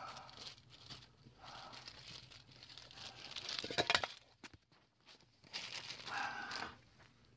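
Rustling, crinkling handling noise in patches, with a short rapid run of clicks a little before four seconds in.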